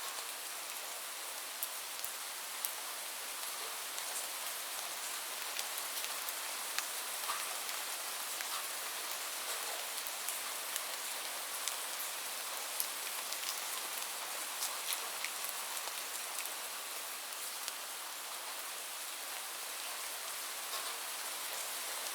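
Heavy rain falling steadily, an even hiss with many sharp individual drops striking a surface.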